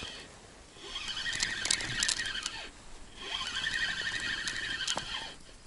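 Spinning reel on a feeder rod being cranked to wind in a hooked fish: a ticking whirr from the reel's gears, in two spells of about two seconds each, with a short pause between them.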